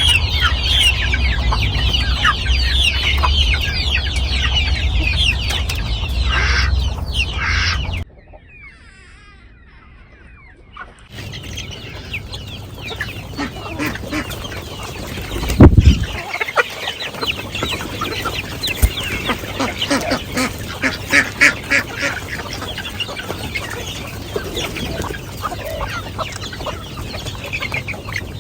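A flock of chickens clucking and calling, dense and continuous, with a low rumble under it in the first part. Partway through the sound drops abruptly to a much quieter stretch for about three seconds before the clucking resumes, and a single loud low thump comes about halfway.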